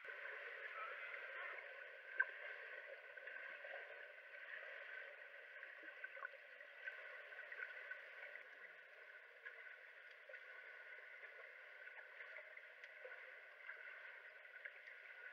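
Swimming-pool water sloshing and splashing, heard faint and muffled with the camera at and below the water surface, with small scattered clicks and one sharper click about two seconds in.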